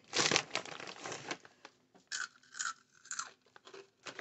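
Crunching and crinkling from a bag of Takis rolled tortilla chips being handled and eaten close to the microphone, in irregular crackly bursts that are densest in the first second and a half, then come more sparsely.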